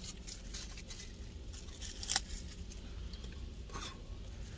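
Light clicks and crinkling from food packaging being handled while eating, with one sharper click about two seconds in, over a low steady rumble.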